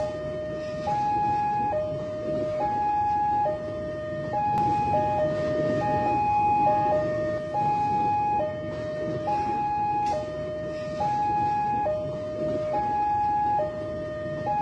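Railway level-crossing warning alarm sounding a steady two-tone high-low signal, each tone held just under a second and repeating without a break, over the rumble of an electric commuter train passing through the crossing.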